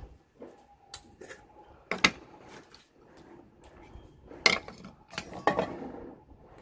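Oyster shells clacking against each other and a stainless steel bowl as an oyster is picked out of it: a few sharp separate clacks, the loudest about two seconds in and again about four and a half seconds in.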